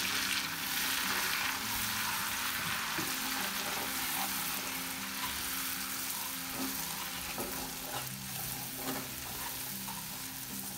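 Melted butter basting sauce sizzling steadily in a cast iron skillet on a gas burner while a wooden spoon stirs it, with a few light scrapes of the spoon against the pan.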